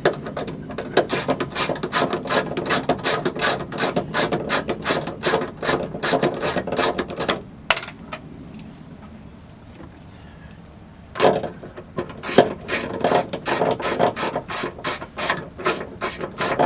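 Hand ratchet with a 10 mm deep socket clicking rapidly as it turns the trunk latch nuts, about three to four clicks a second. The clicking stops for about three seconds past the middle, then starts again.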